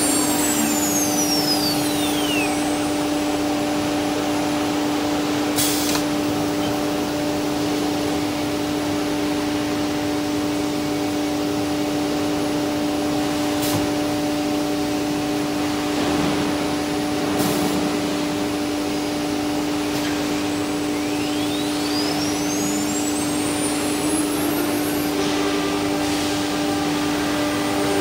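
CNC router spindle spinning down in a falling whine, then a tool change on the router's linear automatic tool changer, with three short air hisses or clicks while the spindle sits at the tool rack. The spindle spins back up in a rising whine in the last third. A steady machine drone of the extraction runs underneath throughout.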